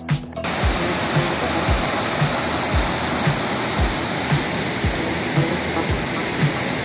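Water pouring over a small stepped river waterfall: a steady rush that starts just after the beginning and cuts off at the end. Background music with a soft beat of about two a second runs underneath.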